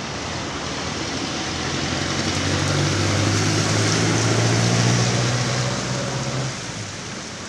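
A jeepney passing on the wet road: a low engine drone that swells over a couple of seconds and dies away about six and a half seconds in, over a steady hiss of traffic and tyres on the wet street.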